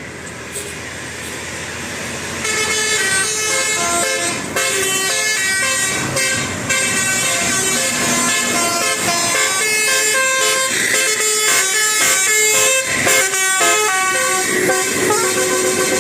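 Bus telolet horn, a multi-tone Basuri horn, playing a quick tune of short notes stepping up and down. The tune gets loud about two and a half seconds in.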